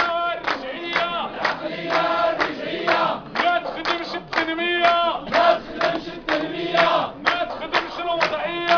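A crowd of men chanting slogans together in unison, in short repeated phrases with a steady rhythm.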